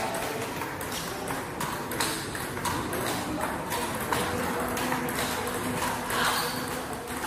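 A table tennis rally: the celluloid ball clicks off rubber bats and bounces on the table at an uneven pace, a sharp tick every half second to a second. A faint steady hum lies underneath.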